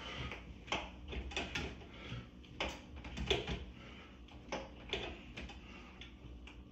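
Doorway pull-up bar creaking and knocking in the door frame under a man's pull-ups: irregular clicks and creaks, roughly one every half second to second.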